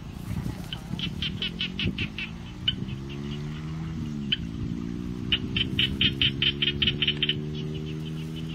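Trains of rapid, high chirping animal calls, about ten a second, in two main spells, over a steady low droning hum whose pitch dips briefly about four seconds in.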